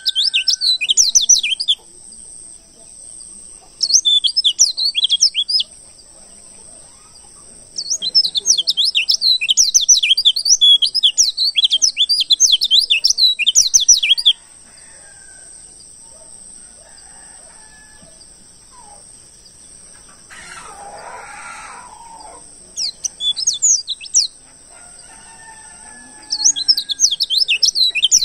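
Wild white-eye (pleci) song: bursts of rapid, high, twittering chirps in phrases of one to six seconds, with quieter gaps between them, over a steady high-pitched background tone.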